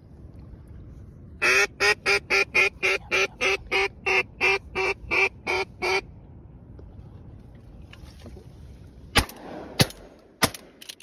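A rapid, evenly spaced series of about fifteen duck quacks, roughly three a second, then several shotgun shots in quick succession near the end as ducks fly over.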